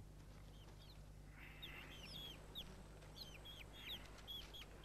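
Small chickens peeping faintly, a string of short falling chirps at irregular intervals, over a faint steady low hum.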